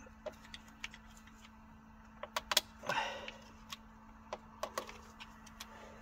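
A pick prying at the plastic clip tabs of a PCV valve cover: a string of small clicks and taps, the loudest a quick cluster about two and a half seconds in, over a faint steady hum.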